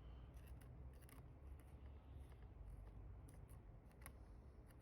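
Near silence with faint, scattered small clicks and scrapes of hand work on old adhesive stickers on a phone's frame.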